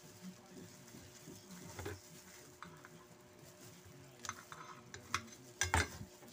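Soft rustling and light clicks of hands in a plastic glove handling food on a plate, with a louder clack near the end as scissors are picked up.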